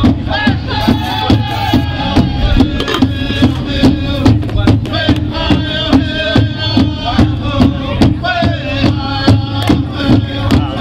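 Music with a steady beat of about two strokes a second and a melody over it.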